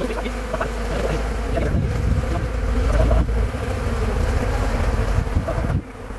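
Many honeybees buzzing around an opened hive, a steady drone. A low rumble runs under the buzz and cuts off sharply near the end.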